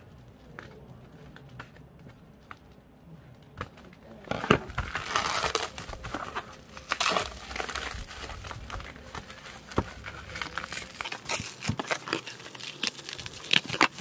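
Bubble wrap crinkling and crackling as hands handle and pull it off a boxed keyboard. It starts about four seconds in, with many sharp crackles.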